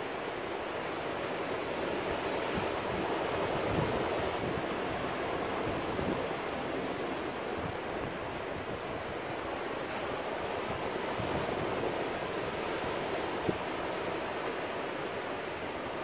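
Ocean surf breaking and washing among rocks: a steady rushing that swells a little twice as waves come in.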